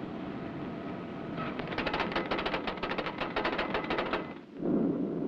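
Rapid mechanical clicking, a fast even run of sharp clicks that starts a little over a second in and stops about four seconds in, over a steady hum. A louder, deeper rumble comes in just before the end.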